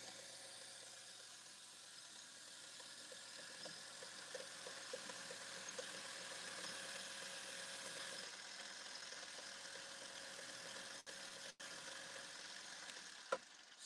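Mini lathe running at high speed, spinning an RC sprint car tire while a coarse sanding paddle is held against it to grind the tread off: a steady motor whine under the hiss of sandpaper on rubber.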